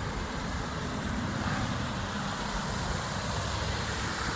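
Steady rushing of a waterfall, an even wash of water noise with a low rumble underneath.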